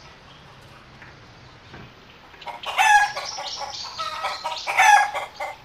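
Chickens calling in a yard, starting about halfway through, with a rooster's crowing among the clucks and two loudest calls.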